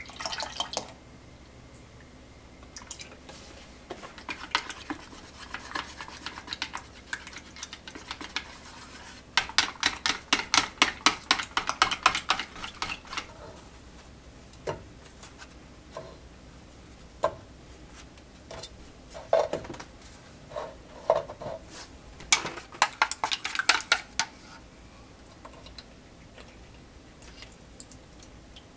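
Wire whisk beating eggs and milk in a plastic measuring jug: two runs of fast, rhythmic clicking strokes, one about ten seconds in and a shorter one near the end. Scattered single knocks and clinks of kitchenware come between the runs.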